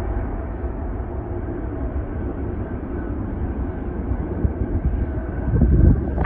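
Boeing 777F's twin GE90 turbofans at takeoff thrust: a steady, low, rumbling jet roar as the freighter lifts off and climbs away, swelling briefly louder just before the end.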